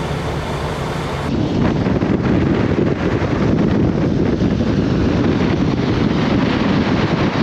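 About a second in, the sound cuts to a snowplow truck driving along a snowy road at night, its engine and plow noise blended into a steady rumble. Heavy wind buffets the microphone throughout.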